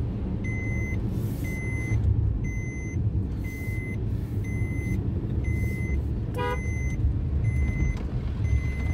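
Maruti Suzuki Alto 800 BS6's three-cylinder petrol engine and tyres giving a steady low rumble inside the cabin while driving, with a dashboard warning chime beeping repeatedly, about one short beep every 0.7 seconds. A brief horn toot sounds about six and a half seconds in.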